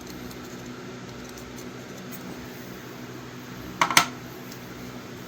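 Faint ticks of small objects being handled on a workbench, with one sharp double click about four seconds in, over a steady electrical hum.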